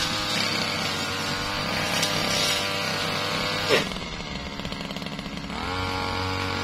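Brush cutter engine running at high revs, then dropping sharply to a lower speed with a short loud burst about four seconds in, and revving back up near the end.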